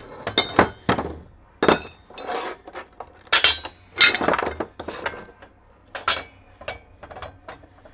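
Metal clanks and clinks as a VW Rabbit front steering knuckle and steel tube press blocks are knocked together and set on the bed of a hydraulic shop press: a string of irregular knocks, some ringing briefly.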